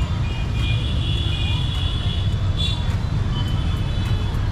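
Steady low rumble of street traffic, with high-pitched steady tones sounding from about half a second to two seconds in and again briefly later.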